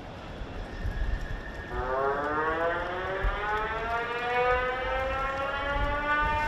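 A warning siren starts about two seconds in and its pitch climbs slowly, over a low rumble of wind and water noise. It is a high-water alarm warning of the acqua alta flood tide.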